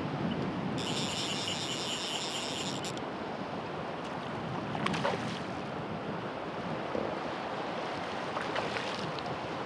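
Wind on the microphone and sea water washing against a stone breakwater. A high, even buzz begins about a second in and lasts about two seconds, and a few faint clicks come later.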